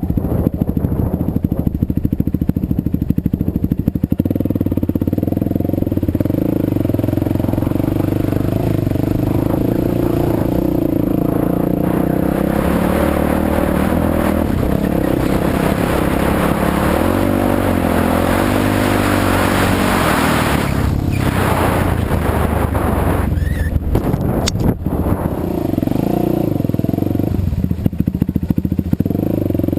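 Yamaha WR450F's single-cylinder four-stroke engine, freshly rebuilt with a new piston and rings, running with its pitch rising and falling as the throttle changes. A few short knocks sound about three-quarters of the way through.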